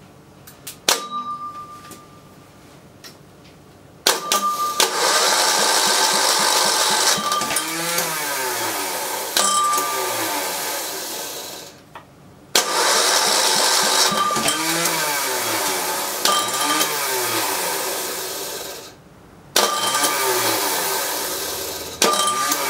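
Cold Nigata NGT5 diesel generator being cranked over by its electric starter motor in three long runs of several seconds each, with short pauses between and a fourth starting near the end, without the engine catching. The starter is troublesome, which the owner puts down to the wrong starter being fitted to the engine.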